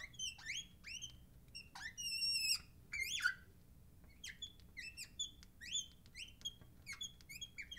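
Felt-tip marker squeaking on the glass of a lightboard while drawing: a quick run of short, high squeaks that slide up and down in pitch.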